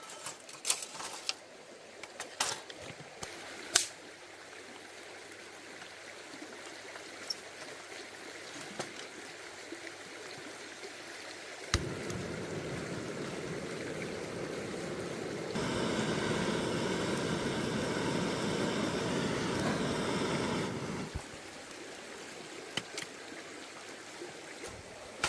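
Forest stream running, with a few light clicks and knocks in the first seconds. The water suddenly gets louder about halfway through and louder still for a few seconds, then drops back abruptly.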